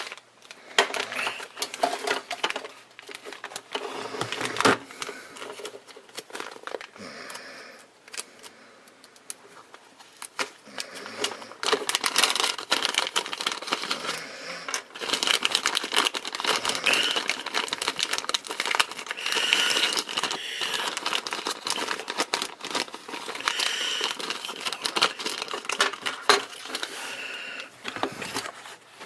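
Packaging being unwrapped and torn open by hand: crinkling and rustling with many small crackles, busier and louder in the second half.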